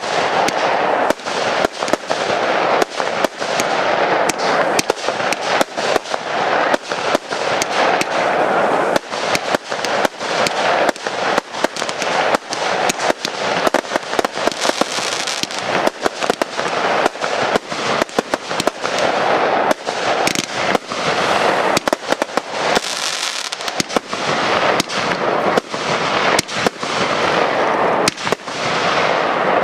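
Aerial fireworks display: firework shells bursting in rapid succession, several bangs a second, over a continuous crackle and rumble of further bursts.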